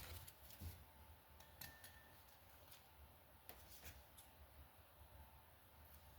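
Near silence, with a few faint, light clicks and taps of small metal parts being handled, such as dowel pins being worked out of a motorcycle cylinder head.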